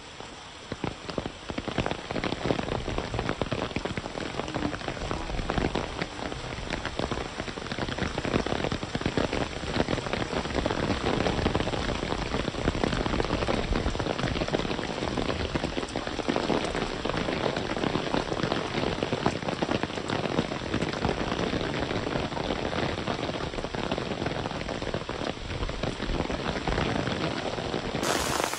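Rain falling steadily, a dense hiss full of separate drop ticks, which comes in sharply about half a second in.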